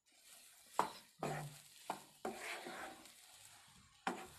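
Wooden spatula stirring and breaking up cooked, fluffed semolina (rava) in a kadhai, scraping along the pan with about four sharper knocks of the spatula against it.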